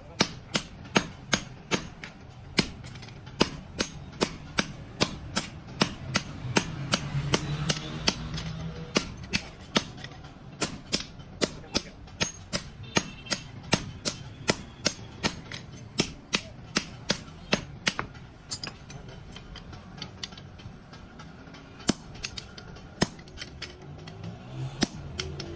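A hammer striking steel on an anvil in forging, a quick, even run of about three blows a second with a metallic ring after each. The blows thin out to a few scattered strikes about two-thirds of the way in, then pick up again.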